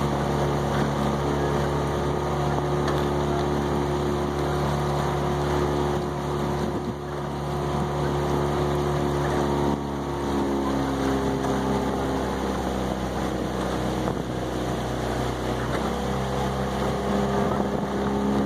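Outboard motor of a coaching launch running at steady speed, its pitch shifting about ten seconds in and again near the end, with wind on the microphone.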